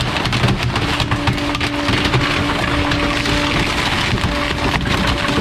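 Bulk-waste truck's compactor crushing bulky items: wood cracking and splintering in many sharp snaps, over the truck's steady hum.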